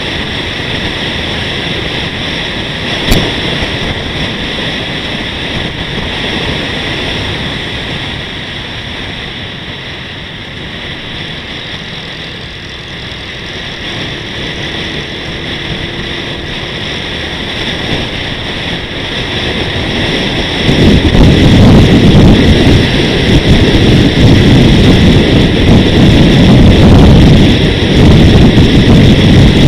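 Wind and road noise on a moving action camera's microphone: a steady rush with a faint high steady tone, and one sharp click about three seconds in. About two-thirds of the way in, loud wind buffeting takes over.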